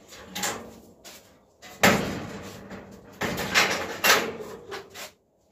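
Knocks and bangs of things being handled: one sharp bang a little under two seconds in, then a cluster of knocks and clatters around three to four seconds.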